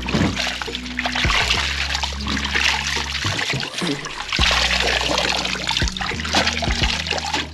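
Hands swishing and squeezing a mass of jute leaves in a plastic basin of salted water, the water splashing and trickling irregularly as the leaves are washed.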